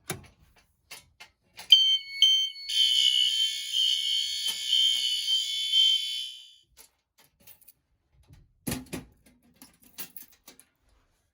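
Fire alarm horns sounding: two short high beeps, then several shrill tones together for about four seconds before cutting off. A few clicks come before them and a thump near the end.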